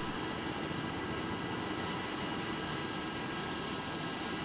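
Helicopter engine running steadily, a continuous rushing sound with a thin, constant high whine and no change in level.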